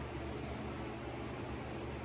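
Steady hum and hiss of an electric fan running, with a few faint sips of iced coffee through a straw.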